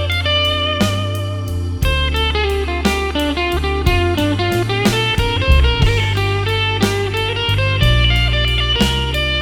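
Electric blues band playing an instrumental passage, electric guitar to the fore over bass and a drum backbeat.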